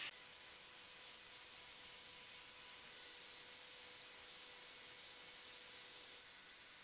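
Angle grinder with a sanding pad running steadily against a carved wooden bowl: a steady hiss with a faint steady tone underneath. The hiss shifts slightly about three seconds in and again about six seconds in.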